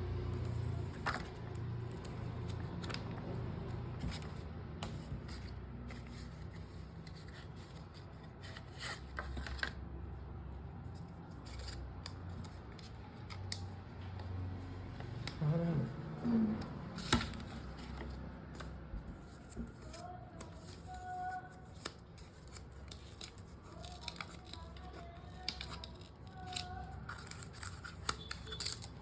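Scattered sharp clicks, snips and crinkles of a Kindle and its packaging being handled, with a few louder knocks about halfway through, over a low steady hum.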